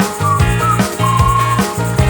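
Background music with a steady beat and a whistled melody.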